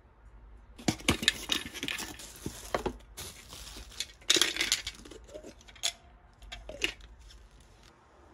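A cardboard box being torn open and a plastic garlic slicer pulled out of it. There are spells of rustling and tearing, with light plastic clicks and knocks as the parts are handled.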